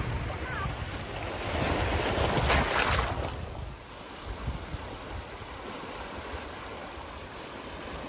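Small sea waves washing in over a rocky shore. The surf swells about two seconds in and falls back to a steady, softer wash near the four-second mark.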